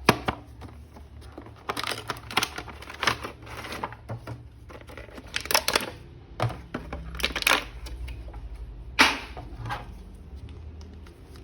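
Hands unboxing a plastic action figure: irregular crinkles, crackles and clicks of plastic packaging and the figure being handled, the sharpest about nine seconds in.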